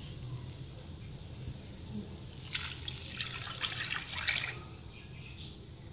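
Milk poured from a jug into a hot nonstick pan of roasted broken wheat (dalia): a splashing pour lasting about two seconds, starting about two and a half seconds in.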